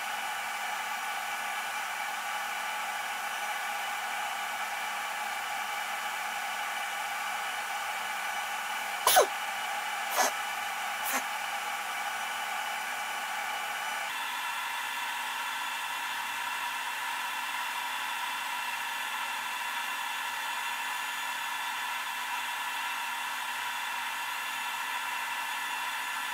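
Steady whirring hum with several whining tones from the equipment charging a 12 V LiFePO4 battery at about 60 amps. The tone of the whine shifts about halfway through. Three short clicks come about nine, ten and eleven seconds in, the first the loudest.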